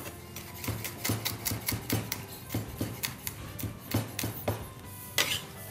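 Chef's knife chopping garlic on a wooden cutting board: a quick, uneven run of knocks, about three or four a second.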